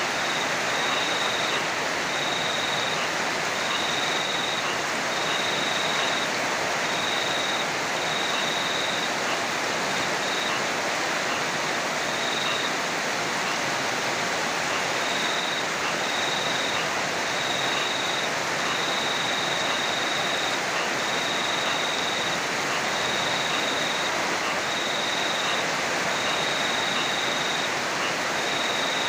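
Heavy rain falling steadily, an even rushing hiss with no thunder. A high-pitched trill sounds over it in short stretches that come and go every second or so.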